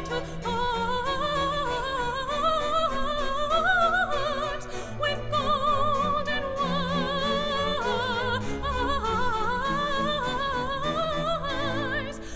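Classical vocal music with an orchestra: a high operatic voice sings a melody with wide vibrato, rising and falling, over sustained orchestral accompaniment.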